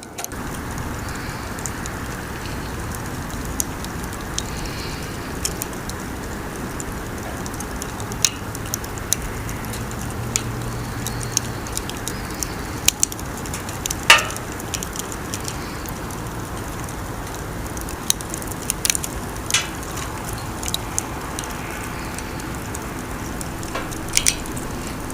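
Wood campfire crackling: a steady hiss with frequent sharp, irregular pops, the loudest a little past halfway through.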